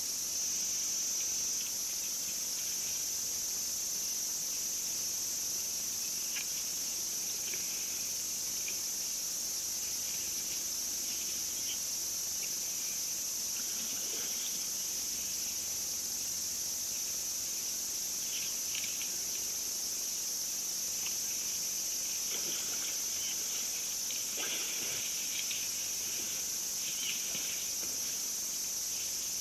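A steady chorus of insects, a continuous high shrill that never lets up, with a few faint short sounds scattered through it, a little clearer past the middle.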